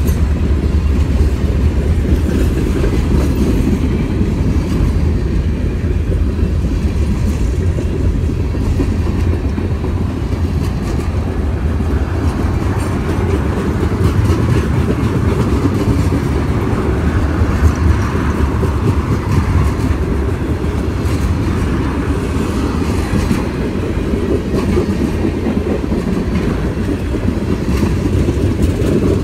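Freight train cars, boxcars then tank cars, rolling past close by: a steady rumble of steel wheels on the rails with clickety-clack over the rail joints.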